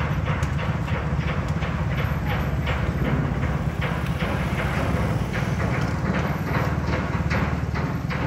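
Footsteps on concrete at a steady walking pace, over a constant low rumble.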